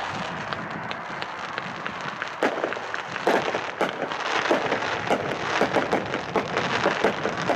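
A 49-shot 500-gram consumer fireworks cake firing: a dense crackle with many sharp pops and bangs, growing thicker and louder about two and a half seconds in.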